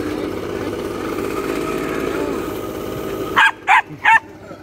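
Leaf blower running steadily until it cuts off sharply about three and a half seconds in. A Jack Russell puppy then gives three short, high barks in quick succession.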